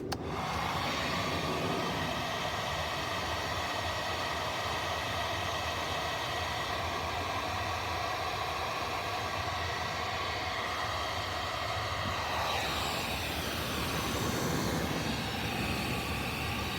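Handheld hair dryer switched on and running on high: a steady motor whine over rushing air, heating an adhesive screen-repair patch so it sticks. Its pitch shifts slightly about twelve seconds in.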